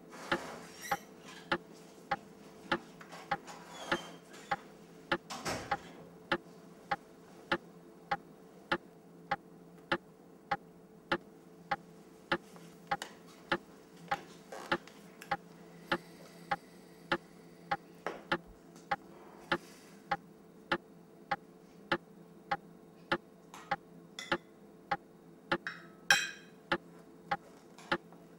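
A clock ticking steadily, about two ticks a second, over a low steady hum. Near the end comes a brief clatter of dishes as food is served.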